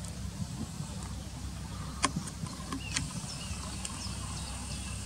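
Steady low outdoor rumble with no birdsong, broken by a few sharp clicks about two and three seconds in.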